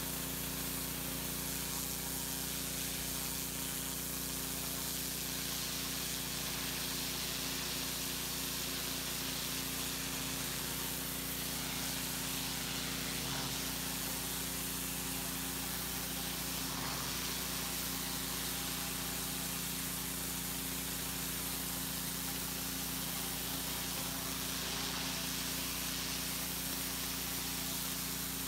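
Pressure washer spraying a dirty brick wall through a turbo nozzle: a steady hiss of water striking the brick over the continuous hum of the machine's motor and pump.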